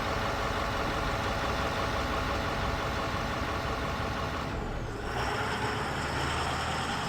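Bus engine running as a sound effect, steady, with the sound changing about five seconds in.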